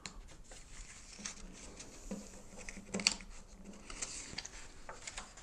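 Pages of a glossy collector's magazine being turned and handled: soft paper rustles, with a sharper crackle about three seconds in.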